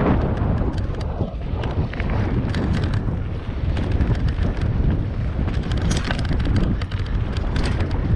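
Titus mountain bike descending a gravel singletrack at speed: wind buffeting the camera microphone over tyre noise on the gravel, with frequent sharp rattles and knocks from the bike over the rough surface.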